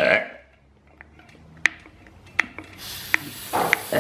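Plastic bicycle-pump head rubbing and clicking as it is worked onto the tyre's valve. About three seconds in, a steady hiss of air escaping from the valve starts.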